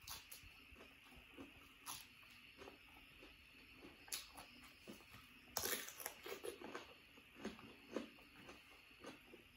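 Close-miked chewing of raw vegetables and rice: scattered crisp crunches and mouth clicks, with a louder stretch of crunching a little past halfway.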